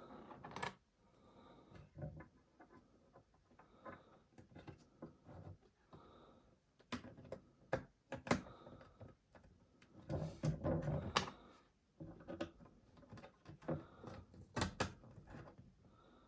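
Scattered small clicks and knocks of hands handling 30-pin SIMM memory modules at a Macintosh Classic II logic board's memory sockets, with a busier run of handling about ten seconds in.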